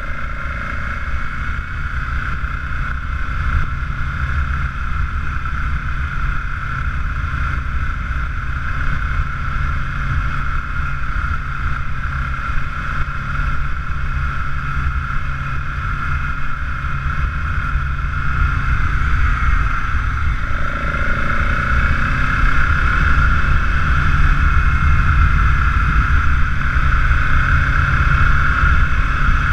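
Motorcycle engine running while the bike is ridden, heard from on board, steady and getting louder over the last ten seconds or so.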